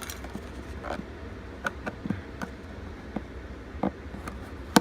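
Scattered light clicks and taps of a small screwdriver prying the bottom cover off an LED dimmer switch, with a sharper click near the end, over a steady low hum.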